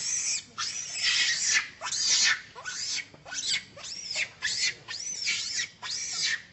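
A young long-tailed macaque screaming: a rapid series of shrill, arching cries, about eight or nine in a row, each rising and falling in pitch.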